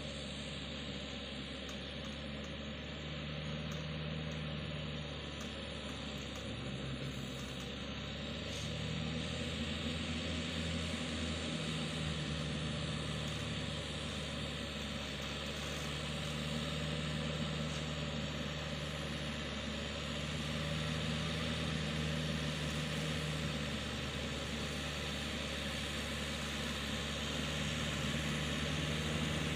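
Yanmar EF 494 tractor's diesel engine running steadily as the tractor works a muddy rice paddy. It grows slightly louder from about nine seconds in.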